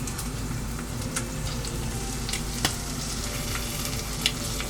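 Hot oil sizzling steadily in a frying pan used for frying eggs, with a few sharp crackles.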